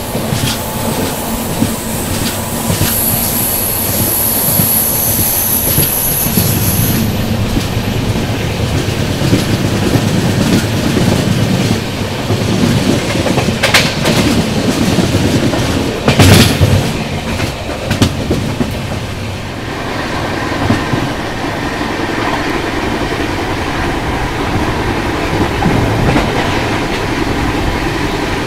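Double-decker express train running at speed: a steady rumble of wheels on the track with rail clickety-clack. A high wheel squeal rings through the first several seconds as the coaches take a curve, and two sharp clacks stand out around the middle.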